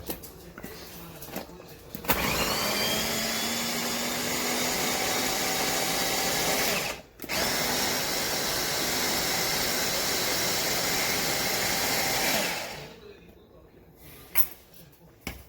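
Small electric food chopper's motor running in two runs of about five seconds each, with a short break between. The blade spins up with a rising pitch at the start and winds down at the end, and there are a few light clicks before and after.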